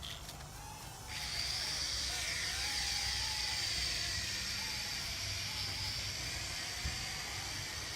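Small quadcopter drone's motors and propellers whining, starting abruptly about a second in and holding steady, the pitch wavering as the motors change speed.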